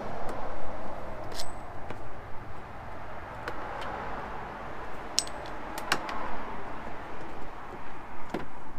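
Plastic trim clips under a car's front bumper being worked loose with a hand tool: scattered sharp clicks and taps over steady rustling and scraping.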